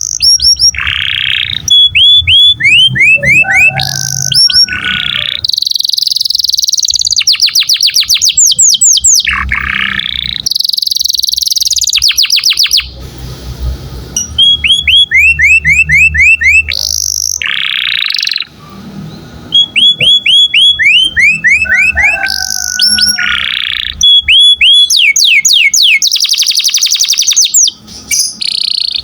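Domestic canary singing vigorously: a long, loud song of rolling trills, each phrase a run of rapidly repeated sweeping notes, some very high and fast, switching to a new phrase every second or two.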